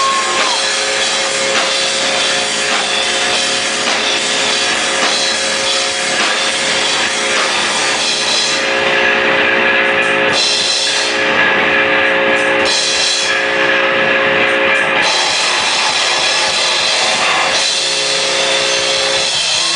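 Live rock band playing an instrumental passage: drum kit with cymbals and guitar, with long held notes ringing over the beat.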